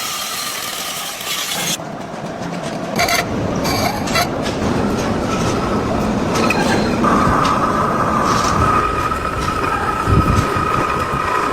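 Heavy machine-shop noise: machinery running, with scattered metal knocks, and from about seven seconds in a steady high squeal.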